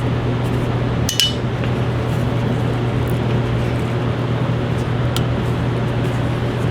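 A single sharp metallic clink with a brief ring about a second in, a small steel bolt dropping into a magnetic parts tray, followed by a few faint light ticks of small metal parts, over a steady low hum.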